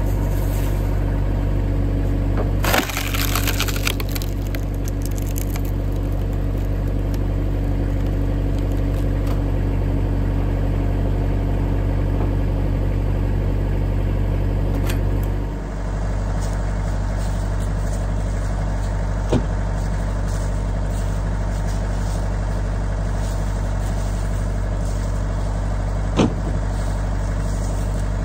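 Tractor engine running steadily, powering a tractor-mounted hydraulic log splitter. About three seconds in, a burst of cracking and splintering lasting about a second as the wedge splits a knotty pine round. Two single sharp knocks come later.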